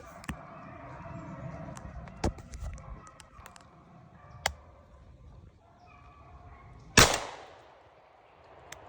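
A single shotgun shot about seven seconds in, a sharp crack with a short echoing tail, fired at a rabbit running ahead of beagles. A few lighter sharp clicks or snaps come earlier.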